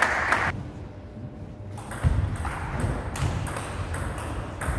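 Table tennis rally: a celluloid ball clicking off rackets and bouncing on the table in a quick, even rhythm, starting about two seconds in, with low thuds from the players' footwork.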